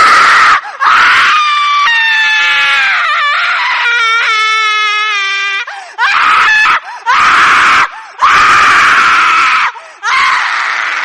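Horror sound effect of a shrieking female ghost voice: a run of loud, raspy screams separated by short breaks. In the middle a long pitched wail falls in pitch and then breaks into rapid stuttering pulses.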